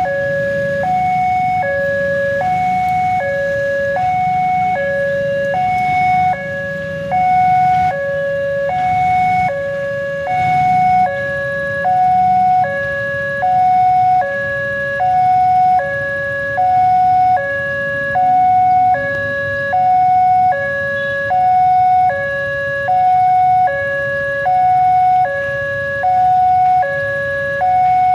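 Electronic warning alarm of an Indonesian railway level crossing, repeating a two-tone pattern that alternates between a lower and a higher tone about once a second, signalling an approaching train. A low rumble runs underneath.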